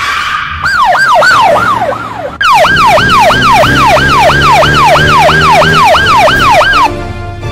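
Police car siren sound effect, a fast yelp sweeping up and down about three times a second over a low engine sound. It breaks off briefly about two seconds in, resumes, and stops near the end.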